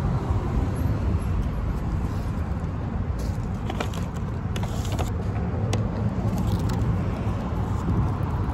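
Steady low rumble of road traffic, with a few short crackles of a paper burger wrapper being handled in the middle.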